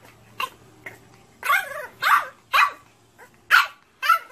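French bulldog puppy barking, a string of about five or six short, high yappy barks.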